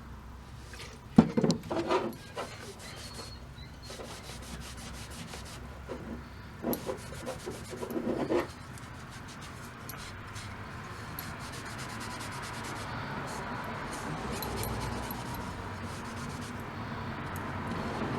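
A rag rubbing along a wooden hammer handle, wiping it down with alcohol to lift the dirt, the rubbing growing slowly louder in the second half. A few knocks and clatters of handling come in the first half, the sharpest about a second in.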